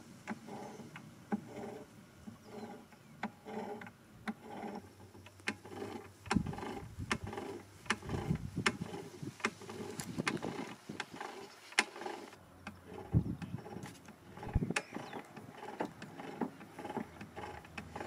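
Irregular light clicks and a few dull knocks as a drill press's keyed chuck is turned slowly by hand against a dial indicator probe, with the motor off.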